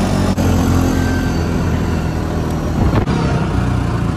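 Side-by-side ATV engine running steadily while driving over a dirt track, heard from inside the cab. The engine note drops about three seconds in.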